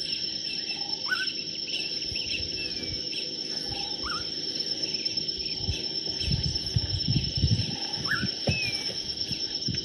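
Outdoor field sound of insects shrilling steadily at a high pitch. A bird's short rising call repeats about every three to four seconds, and low rumbling buffets hit the microphone about six to eight seconds in.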